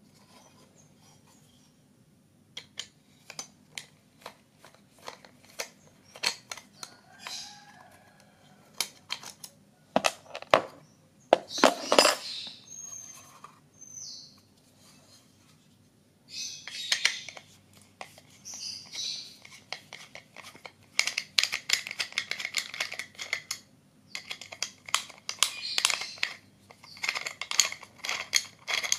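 Metal clicks and taps as a small finned aluminium amplifier case is handled, then from about halfway, quick runs of scraping clicks as a screwdriver turns out the case screws.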